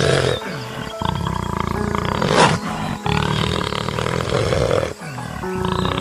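A big cat growling over background music, with one sharp, loud outburst about two and a half seconds in.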